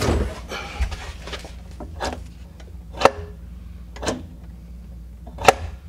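Pop-up sink drain assembly being worked up and down: a string of sharp clicks and clunks from the pivot rod, clevis strap and stopper moving, roughly one a second, the loudest about three seconds in and near the end. The linkage moves freely, which is taken to mean the pop-up works.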